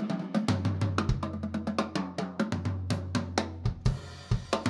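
Live jazz band led by a drum kit playing a busy pattern of rapid snare, bass-drum and cymbal hits over held bass notes.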